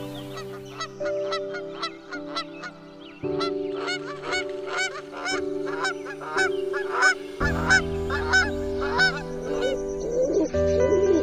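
A rapid run of honking animal calls, several a second, over soft background music with held chords; near the end, low cooing from a rock pigeon comes in.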